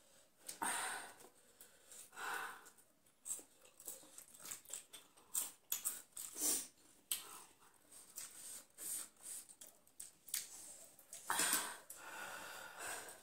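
Eating sounds of spicy instant ramen: irregular noodle slurps and wet chewing, with light clicks of forks on plates and short noisy breaths between mouthfuls.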